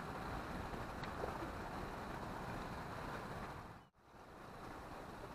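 Steady rush of sea surf and wind on the microphone, dropping out for an instant about four seconds in.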